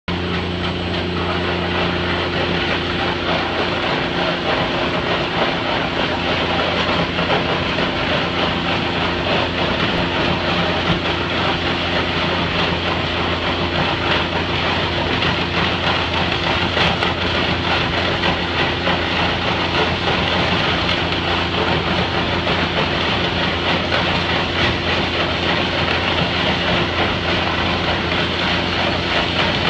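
High-pressure waterjet hydrodemolition rig blasting concrete: a loud, steady hiss of the water jet, with a constant low machine hum underneath.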